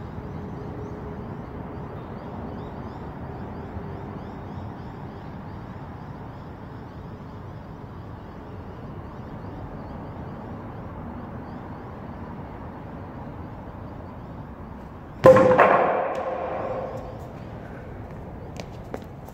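Steady background hiss of a large empty room, then about fifteen seconds in a single loud wooden clack with a short pitched ringing tail: the upright two-by-four plank hitting the concrete floor.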